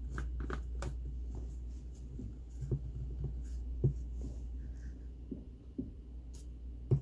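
Handling of a Magic Bullet blender's plastic cup and blade base: soft rubbing and a few small knocks, the sharpest near the end, over a steady low hum.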